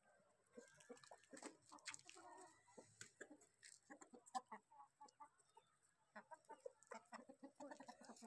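Chickens clucking faintly in short, scattered calls, with soft clicks mixed in.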